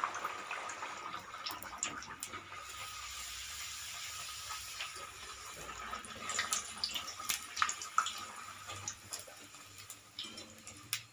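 Poori deep-frying in hot oil in a steel kadai: a steady sizzle, with a few sharp clicks of the wire-mesh skimmer against the pan.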